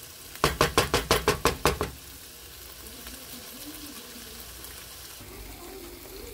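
A spatula knocking rapidly against a nonstick frying pan, about ten quick strikes in a second and a half, while stirring and chopping vegan crumbles, onions and cheese in the pan. After that, a steady, quieter sizzle of the food frying.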